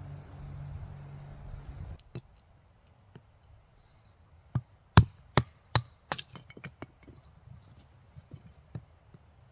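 A steady rasping noise stops about two seconds in. Then a knife is batoned into a short conifer log: a wooden baton strikes the knife's spine in sharp knocks, four loud ones less than half a second apart, then a quicker run of lighter ones and a few scattered taps near the end.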